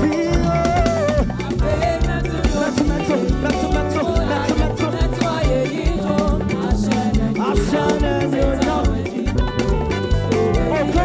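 Live band playing upbeat, dance-style praise music with drum kit and bass, with voices singing over it.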